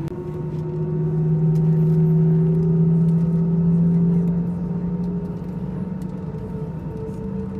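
Airbus A320's engines heard from inside the passenger cabin as the jet taxis and lines up on the runway: a steady low hum that swells for a few seconds, then eases back toward idle.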